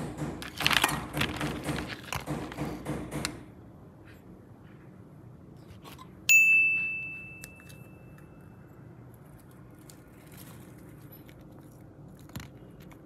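A fast, regular run of crackling clicks that stops about three seconds in, then a single bright bell-like ding that rings out and fades over about two seconds.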